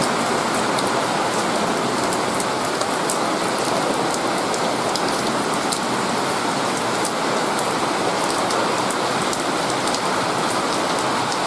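Steady rain falling, an even hiss with many separate drops heard as small ticks.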